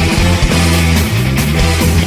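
Heavy metal music played loud and dense: electric guitars over driving drums.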